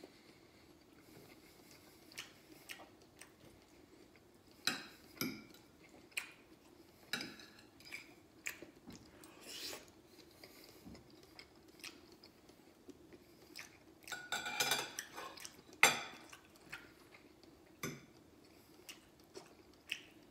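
Metal fork and spoon clinking and scraping on a ceramic plate during a meal, scattered light clicks with the loudest clatter about fourteen to sixteen seconds in, and chewing between them. A faint steady hum lies underneath.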